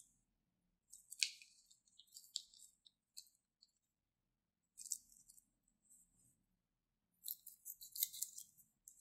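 Clear plastic piping bag crinkling in short, crisp bursts as it is squeezed and kneaded around the slime inside. Near the end scissors snip at the bag's tip.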